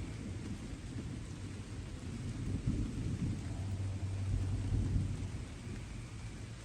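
Distant thunder rumbling low, swelling about halfway through and easing off near the end, over the soft steady hiss of light rain.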